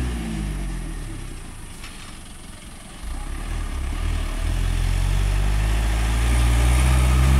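Engine of a loaded light dump truck pulling uphill. It grows louder as the truck approaches, and its pitch rises steadily in the second half as the engine works under the load.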